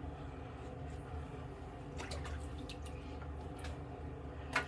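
Faint water dripping and splashing, a handful of small drips from about two seconds in, over a low steady hum.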